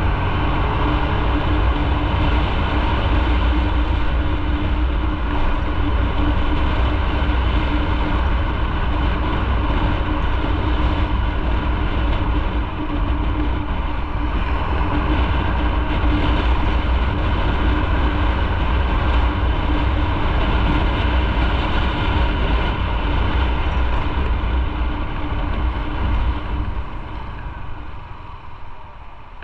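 Motorcycle riding at speed: steady wind rush on the microphone with engine and road noise under it. It eases off near the end as the bike slows behind braking traffic.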